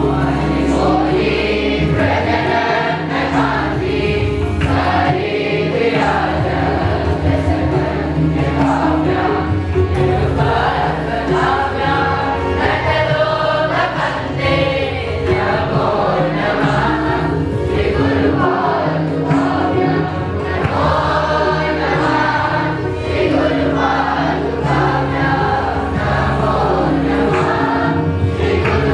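A group of boys singing a devotional song in unison through a microphone system, over a steady held drone from an accompanying instrument.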